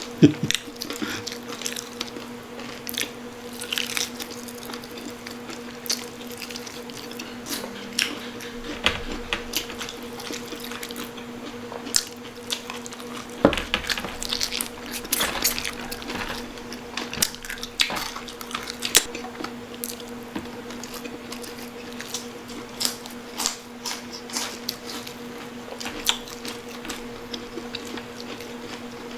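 Close-miked eating: wet chewing and lip-smacking on crispy pata (fried pork knuckle), with many short, sharp clicks scattered throughout, over a steady low hum.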